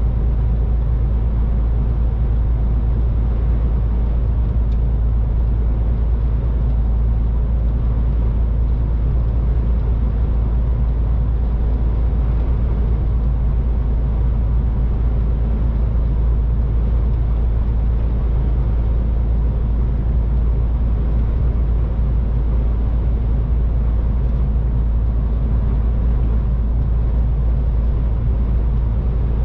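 MAN TGX 18.510 semi-truck's inline-six diesel engine running steadily on the road, a constant deep rumble mixed with tyre and road noise, with no change in revs or speed.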